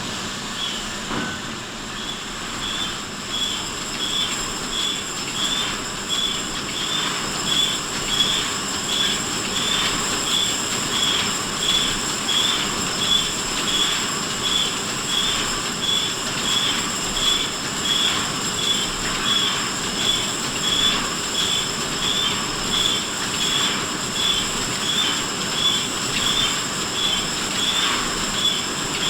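Machinery running steadily, with a regular high-pitched squeak repeating about every 0.7 s over a constant hiss and a thin high whine.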